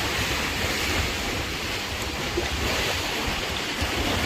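Sea surf washing on a beach, a steady rushing wash, with wind buffeting the microphone.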